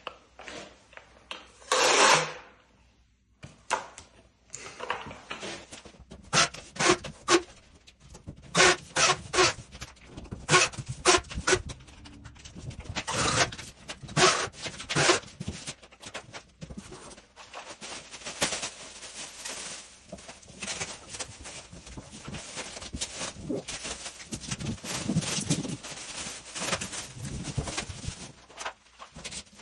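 Masking tape pulled off the rolls of a dual-roll tape applicator in a series of short, sharp rips and screeches. Later the plastic masking sheet rustles and crinkles more continuously as it is handled.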